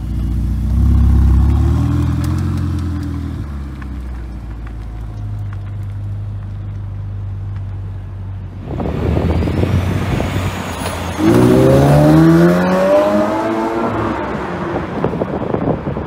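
Sports car engine revving briefly, then running at a low, steady idle; about nine seconds in it launches hard and accelerates away, the pitch climbing through a gear before fading as the car pulls off.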